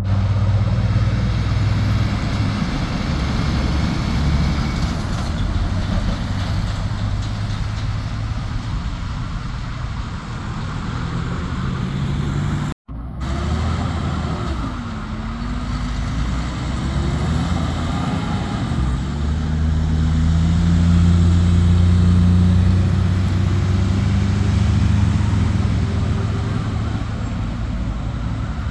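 Heavy diesel semi-trailer trucks hauling container trailers through a roundabout at low speed, a deep steady engine drone with car traffic passing. The sound breaks off for an instant about 13 seconds in. After that an engine note dips and rises in pitch, and the drone swells loudest around two-thirds of the way through.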